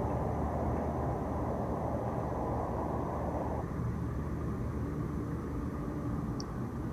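Steady low outdoor background rumble with no distinct events, its level easing slightly about halfway through.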